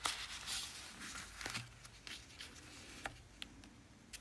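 Quiet handling of a paper and card journal: soft rustling with a few light taps and clicks.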